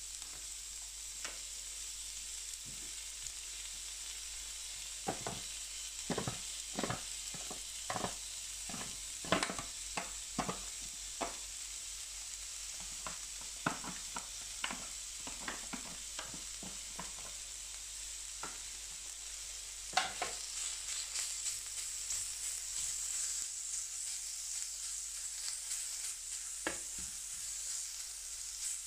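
Meat and bacon sizzling in oil on a hot carbon steel griddle, a steady high hiss. Through the middle comes a run of sharp taps and clicks on the pan, and the sizzle grows louder about two-thirds of the way through.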